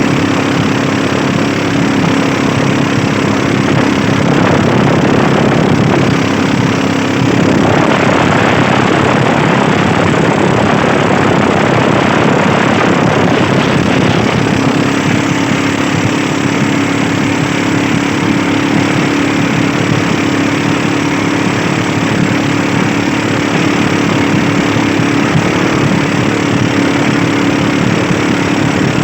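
Fishing boat's engine running steadily under way, with a steady hum. From about a quarter of the way in, a louder rushing noise swells for several seconds and covers the hum, which then comes back.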